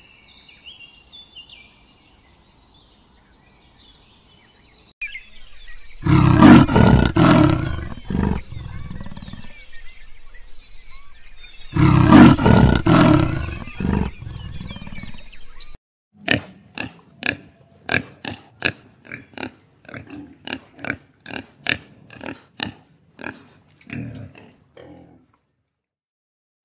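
A big cat giving two long, loud calls of about three seconds each, a few seconds apart. Then a pig grunting in a fast series of short grunts, about two a second, for nearly ten seconds.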